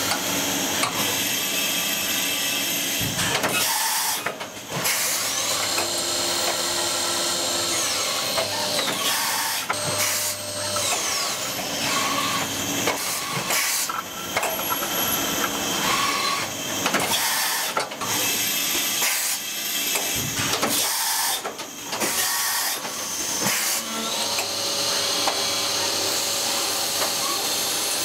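3-spindle CNC machining centre cutting a brass valve body: a high spindle whine that rises and falls as the tools speed up and slow down, over a steady hiss of cutting noise, with a few short bursts and brief gaps.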